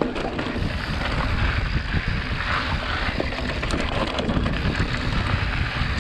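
Mountain bike riding downhill on a dirt and rock trail: wind buffeting the camera microphone over the steady rumble of the tyres rolling on loose ground, with a few small rattles and clicks from the bike.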